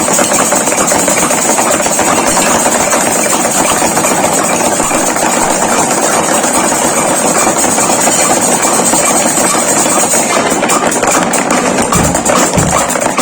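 Drums played fast in a dense, continuous stream of strokes with a steady high wash over them. The wash stops about ten seconds in, and a few low thumps come in near the end.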